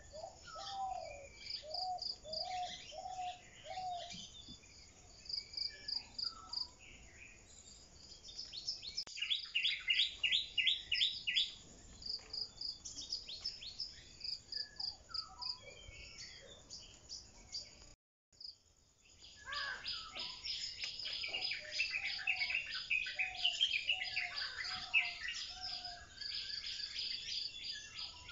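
Birds singing and calling, with varied chirps and fast trills, over a steady, fast-pulsing cricket chirp; the whole sound cuts out for a moment about two-thirds of the way through.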